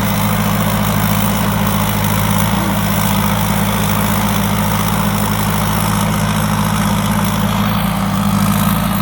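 Thai Seng 'Super Jiw' 165-horsepower combine harvester running steadily while it harvests rice, a constant low engine drone with machinery noise over it.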